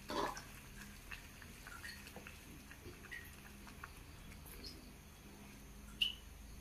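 Spatula stirring thick milky payasam in a non-stick pan, giving faint sloshing and light scraping clicks. There is a louder knock at the very start and a short sharp tap near the end.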